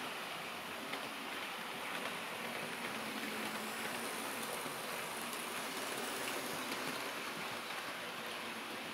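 Hornby OO gauge model trains running around the layout's track: a steady rolling hiss with a few faint clicks, a little louder in the middle as the trains pass close.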